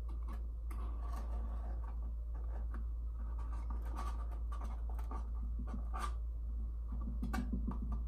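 Small clicks, taps and scrapes of a black board piece being handled and pressed into place among other panels inside a glass aquarium, over a steady low hum.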